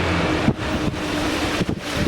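Wind buffeting the microphone over a vehicle engine running with a steady low hum.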